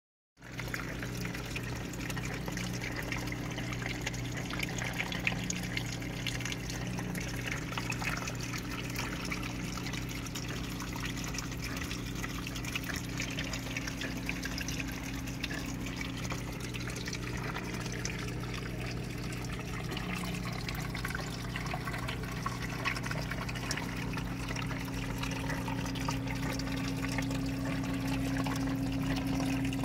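Water trickling steadily, as from a terrarium's water feature, over a constant low hum.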